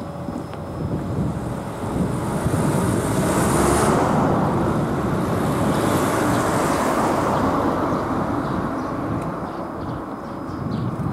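Two cars driving past one after the other, their tyre and engine noise swelling to a peak and then fading away.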